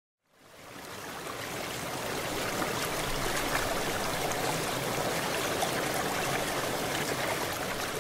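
Steady rushing, water-like noise, fading in from silence within the first second and then holding even.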